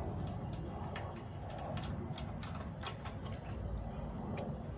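Scattered light clicks and handling noise as a snowblower carburettor's float bowl is worked off, over a low steady hum.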